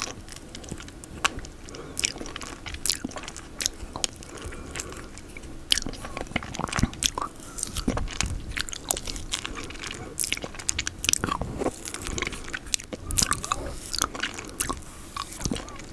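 Close-miked mouth sounds of eating peanut butter: sticky smacking and chewing with many quick wet clicks at an irregular pace.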